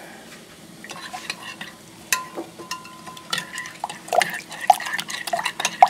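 A metal spoon stirring ground spices into citrus juice in a glass measuring cup, with repeated clinks and taps against the glass. One tap about two seconds in leaves a brief ring.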